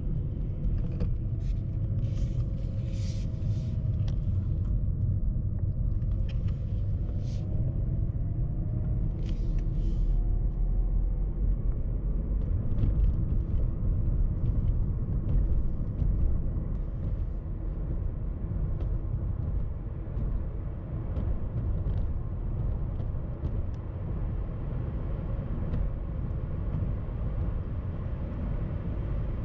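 Steady low rumble of road and wind noise heard inside a car cabin at highway speed, in a BMW converted to electric drive. A faint whine glides upward in pitch over the first ten seconds or so, and a few short hisses come and go.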